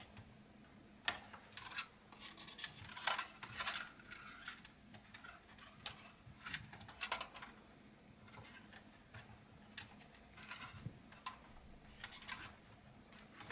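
Faint, irregular small clicks and light scrapes of fingers pressing thin cables into the plastic routing channels beside a laptop's hinge.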